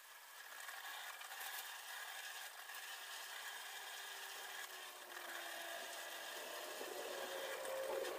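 Faint rustling and small snaps of leafy vegetable stems being stripped by hand, over a steady background hiss with a thin high hum.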